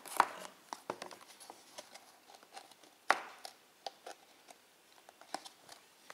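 Hands handling a folding cardboard multi-disc digipak: scattered taps, clicks and rustles as the card panels are folded and shifted, with sharper knocks just after the start and about three seconds in.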